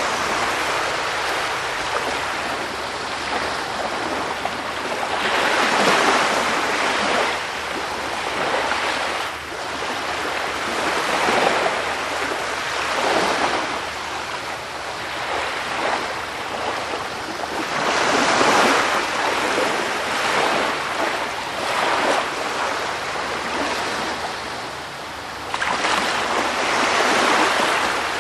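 Sea surf washing onto a shore: a continuous rushing of water that swells and ebbs as each wave breaks and draws back, every several seconds.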